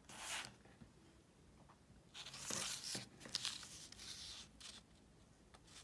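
Sheet of origami paper being handled by hands: faint rustling and crinkling as it is folded, turned and smoothed flat. There is a brief rustle at the start and a longer stretch of rustling about two seconds in.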